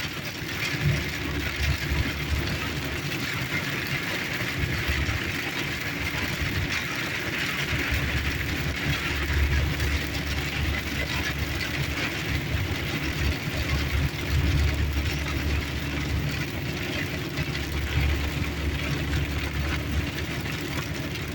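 Car cabin noise in heavy rain: a steady hiss of rain and road noise, with low rumbling surges every few seconds.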